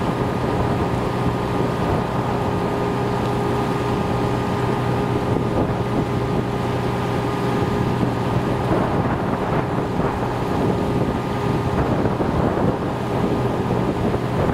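Steady hum of an engine running at an even speed, with wind noise on the microphone.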